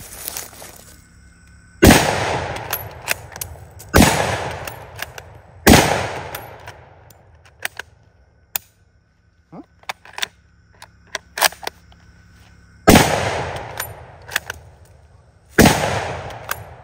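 Mauser Kar 98k bolt-action rifle fired five times, the bolt worked between shots, each shot trailing off in an echo. The first three shots come about two seconds apart. Then there is a gap of about seven seconds with light bolt clicks, where a round failed to feed, which the shooter puts down to not pulling the bolt back far enough. The last two shots are close together.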